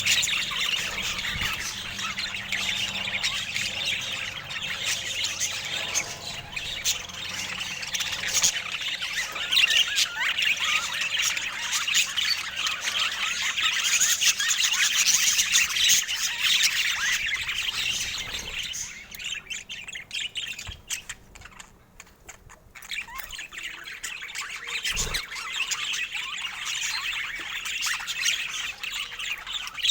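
Budgerigars chattering, with continuous fast chirps, warbles and squawks. The chatter dies down briefly about two-thirds of the way through, then resumes.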